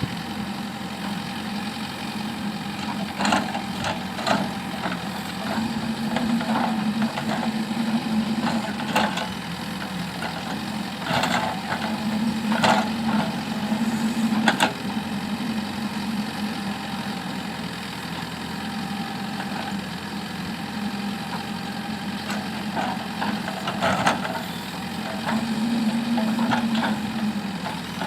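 JCB backhoe loader's diesel engine running, swelling in pitch and load several times as it works, with scattered sharp knocks and clanks.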